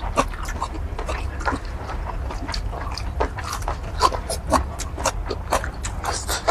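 Close-miked chewing and lip-smacking of someone eating curry squid: a quick, irregular run of wet smacks and clicks. A steady low hum runs underneath.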